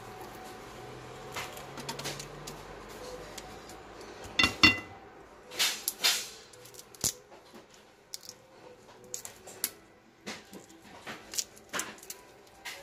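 Kitchen scissors snipping the legs off a raw prawn, then fingers peeling its shell: a run of sharp snips, clicks and small crackles, with one louder clatter that rings briefly about four and a half seconds in.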